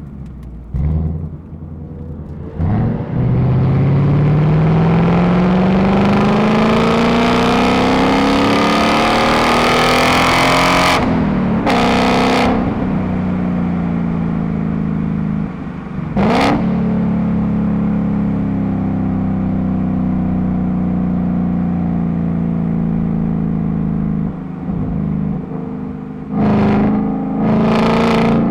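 Ford Mustang engine accelerating, its pitch climbing steadily for about eight seconds, then running at a steady cruising pitch. A few short whooshes cut across it at about 11, 16 and 27 seconds in.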